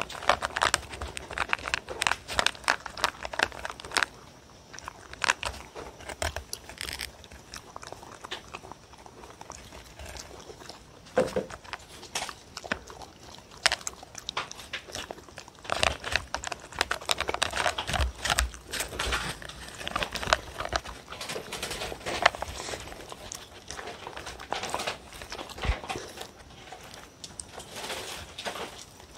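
A dog crunching dry kibble from a paper bowl, in quick runs of bites separated by quieter pauses.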